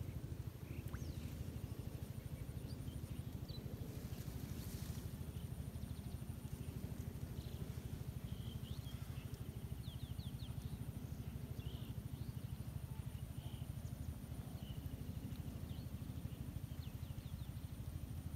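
Outdoor rural ambience: a steady low hum runs underneath, while short bird chirps come and go and insects keep up a thin, steady high-pitched tone.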